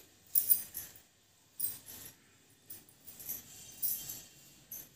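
Hands rubbing and patting oil into a child's hair and scalp: a run of short, irregular scratchy rustles, about six in all.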